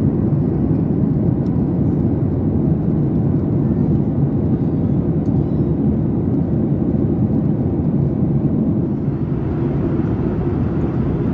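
Steady low rumble of cabin noise inside a Boeing 737 MAX 8 airliner, engine and airflow noise heard from the passenger cabin, unchanging in level.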